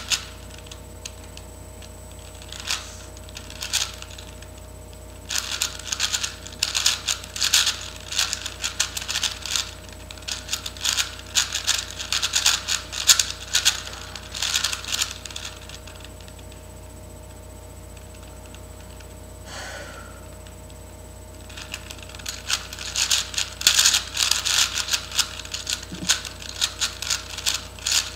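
4x4 Rubik's cube being turned by hand during a blindfolded solve: runs of rapid plastic clicking from the layer turns, broken by pauses of a second or more, the longest a few seconds after the middle.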